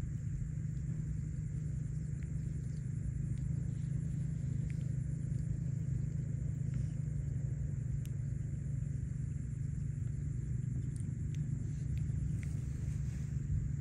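Steady low rumble at an even level, with a few faint scattered ticks.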